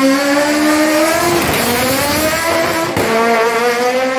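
Racing car engine at full throttle accelerating away from a standing start, its pitch climbing, dropping back and climbing again twice, about a second and a half in and about three seconds in.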